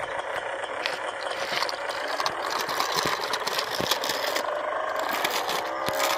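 Miniature auto-rickshaw moving off with a steady mechanical whirr and rattle that climbs slowly in pitch, with small clicks along the way.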